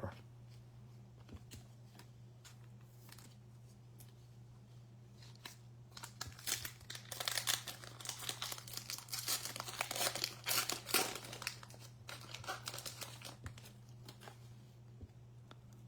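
Baseball card pack wrapper crinkling and tearing as it is opened. The crackling starts about six seconds in and goes on for several seconds, over a steady low hum.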